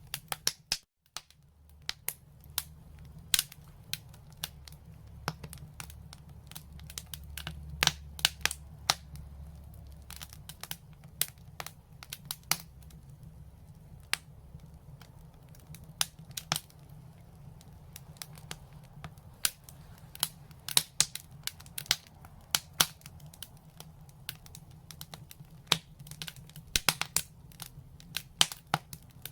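Fire crackling in a brick fireplace: irregular sharp snaps and pops over a low steady rumble, with a brief drop-out about a second in.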